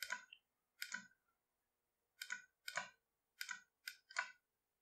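Computer mouse clicks, about seven short sharp clicks spread over a few seconds as menu items and dialog options are selected.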